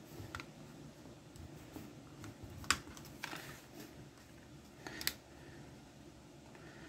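Faint small clicks and scrapes of a pry tool working at the seam of a cheap plastic Geiger counter case, with two sharper clicks, one near the middle and one about two-thirds of the way in.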